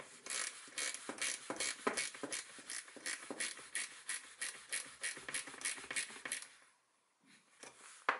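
Ratcheting ring spanner clicking steadily, about three clicks a second, as it is swung back and forth to tighten the nut on a braided brake hose fitting. The clicking stops about six and a half seconds in.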